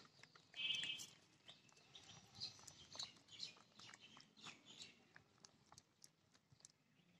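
Faint wet squelching and clicking of a hand mixing thin batter in a stainless-steel bowl, with a short animal call about half a second in.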